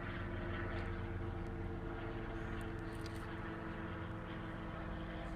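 Steady low hum of an idling car engine, even and unchanging.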